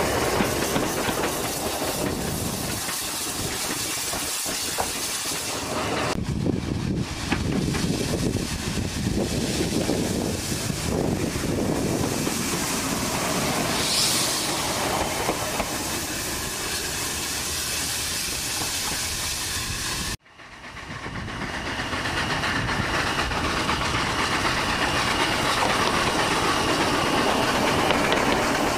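Hunslet Austerity 0-6-0 saddle-tank steam locomotive moving slowly past close by: a steady hiss of steam with scattered clanks from the wheels and running gear. The sound drops out for an instant about two-thirds of the way through, then comes back.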